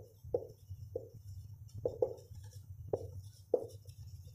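Felt-tip marker writing on a whiteboard: about seven short squeaky strokes, unevenly spaced, over a faint steady room hum.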